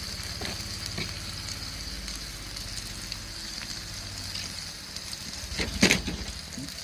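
Pork belly sizzling on a hot gudeuljang stone slab heated by a wood fire: a steady frying hiss, with a brief louder noise a little under six seconds in.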